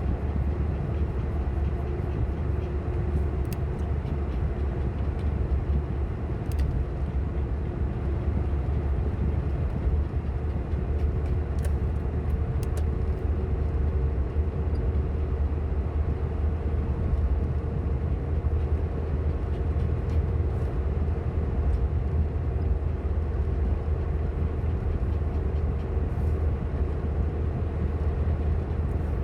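Steady low rumble of a car on the move, heard from inside the cabin, with a faint constant hum and a few light ticks.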